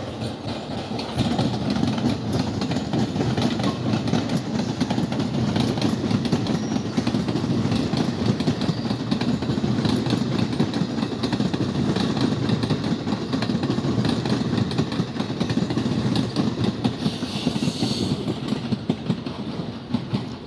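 A train running past at close range, its wheels clattering steadily over the rail joints.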